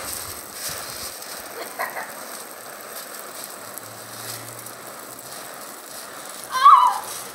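Water from a lawn sprinkler hissing and pattering steadily onto a wet trampoline, with a brief high yelp from one of the boys near the end.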